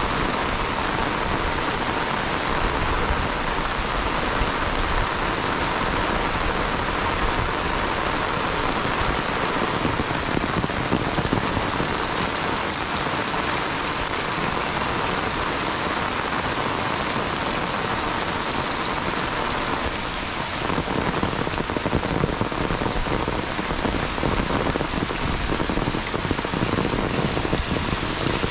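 Heavy monsoon rain falling steadily on a wet road and its puddles.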